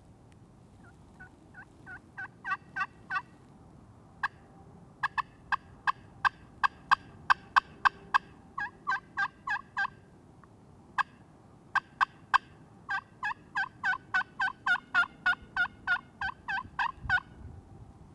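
Turkey yelping: several runs of short, evenly spaced notes, about three a second, with short pauses between runs.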